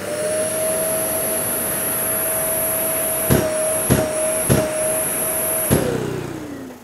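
Bosch GAS 35 M M-class extractor running steadily with a high whine, then its automatic filter cleaning back flush: three sharp knocks about half a second apart, as air is blasted back through the filter to clear dust. A fourth knock comes about a second later, and the motor then winds down with falling pitch.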